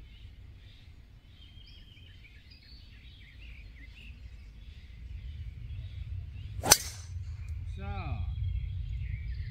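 Golf driver striking a ball off the tee: a single sharp crack about two-thirds of the way in, the loudest sound, over faint birdsong and a low steady rumble.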